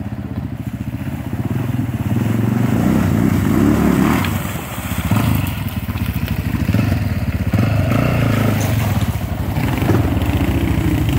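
Off-road motorcycle engine running, its revs climbing about two seconds in, easing off briefly near the middle, then holding steady.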